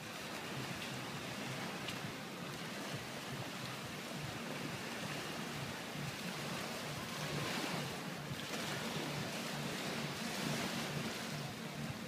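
Small waves washing onto a sandy shore, a steady rush that swells louder twice in the second half, with wind on the microphone.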